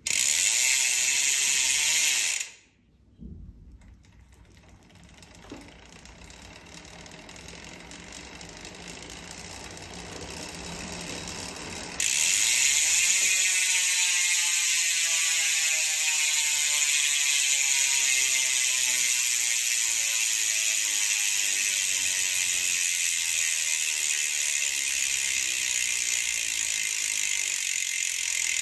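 Carbon-Ti X-Hub SP rear mountain-bike hub freewheeling: its 4 pawls click over the 56-tooth titanium ratchet ring as a loud, fast buzz. The buzz cuts out about two seconds in, comes back faint and grows, then jumps back to loud at about twelve seconds, the clicking slowly easing off as the wheel coasts.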